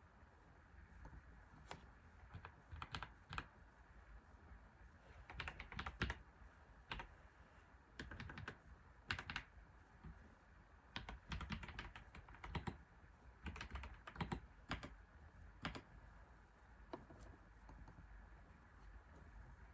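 Computer keyboard typing in irregular bursts of keystrokes with short pauses between them, tapering off to a single stroke or two near the end.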